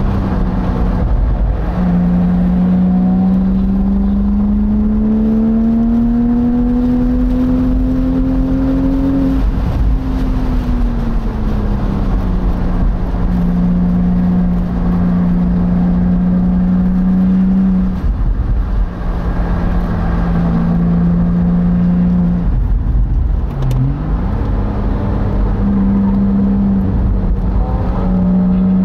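Porsche Boxster engine heard from inside the open cockpit at track speed. Its note climbs slowly over several seconds, falls away, then holds a steady pitch for long stretches, with a sharp dip and recovery about two-thirds through and another climb near the end. Wind rushes over the open car throughout.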